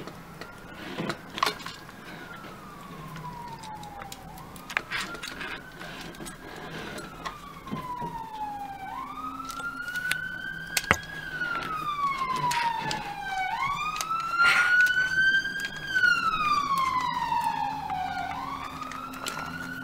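Emergency vehicle siren wailing: each cycle rises quickly and falls slowly over about four seconds, growing louder toward the end and easing a little. A few light clicks and knocks from wires being pushed into the plastic socket's terminals.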